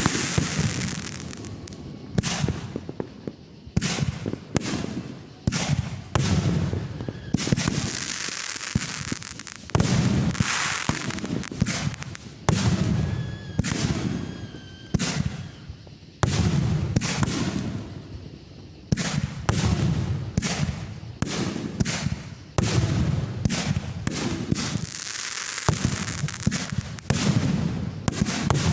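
Fireworks show: shells bursting in a run of sharp bangs, about one every second or two. Stretches of crackling fill the gaps between them.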